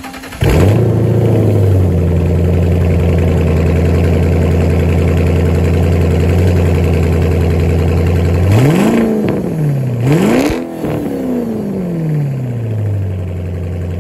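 Car engine through a new SLP Loudmouth axle-back exhaust, cold-starting about half a second in, flaring briefly and settling into a steady, loud idle. Near the end it is revved twice in quick succession, and the second rev falls slowly back to idle.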